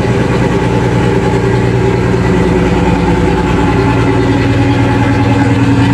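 A boat's main marine diesel engine idling steadily at an even, unchanging speed, running perfectly.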